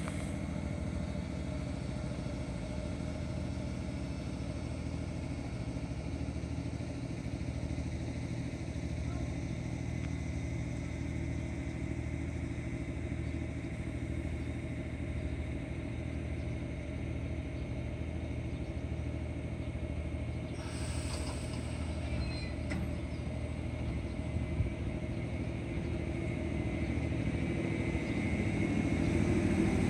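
211-series electric train standing at the platform with a steady hum from its equipment, and a short hiss about two-thirds of the way through. Near the end it starts to pull away, the sound growing louder with a rising tone.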